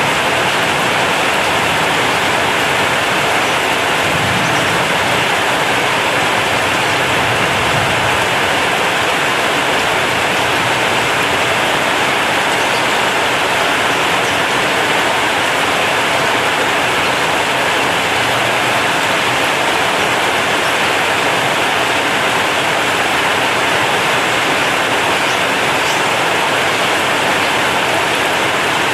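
Heavy rain drumming steadily on a corrugated zinc roof.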